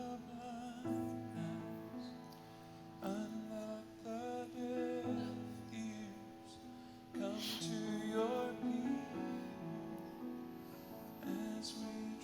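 Slow worship music on piano and keyboard with a woman singing, sustained chords changing every few seconds.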